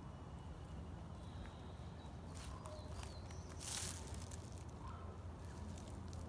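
Quiet forest ambience with a steady low rumble, a few faint high bird chirps midway, and one short rustling crunch a little before the four-second mark.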